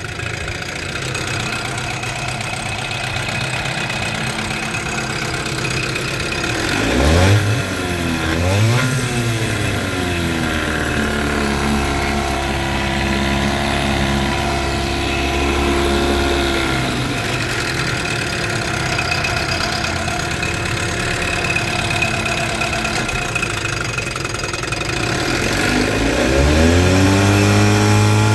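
1987 Johnson 4 hp twin-cylinder two-stroke outboard motor running in a test tank. It idles, is blipped up twice about seven seconds in, and holds a higher speed for several seconds before dropping back to idle. Near the end it is throttled up again and held.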